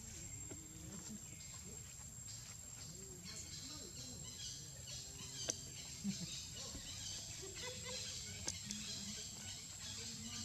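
Outdoor ambience of insects chirring: a steady high whine with a pulsing higher buzz joining about a third of the way in, over a low background rumble. A few sharp clicks come about halfway through and again later.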